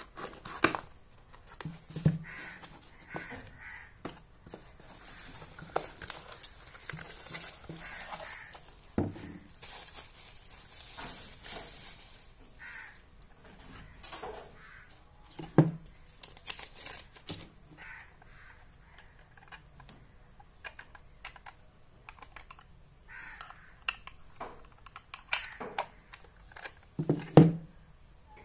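Unboxing handling noise: a cardboard box, a paper leaflet and plastic packaging rustling and crinkling, with scattered clicks, taps and a few louder knocks as a clock and its cable are taken out and set down.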